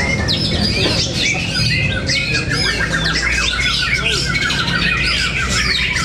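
Many caged white-rumped shamas (murai batu) singing against each other at once: overlapping whistles, chatter and harsh calls. About two seconds in, one bird gives a rapid run of repeated notes, about six a second, lasting a couple of seconds.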